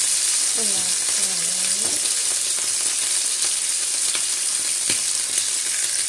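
New York strip steak sizzling steadily as it sears in a hot pan, with a few light clicks from the tongs as the steak is turned and pressed.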